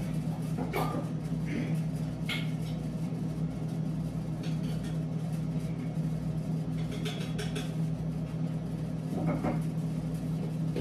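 Air fryer running with a steady low hum while it cooks, with a few light knocks and clinks of kitchen items being handled.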